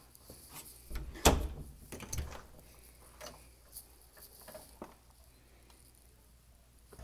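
Scattered footsteps and knocks on a hard floor, with one sharper, louder knock a little over a second in.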